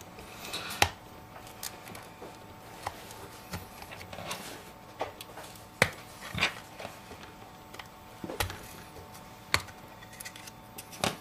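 Scattered sharp clicks and taps, about nine in all at uneven intervals, of a pry tool working between an iPhone 5's screen assembly and its aluminum frame as the display is prised open.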